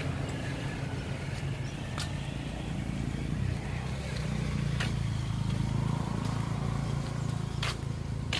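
A steady low rumble with three sharp clicks about three seconds apart.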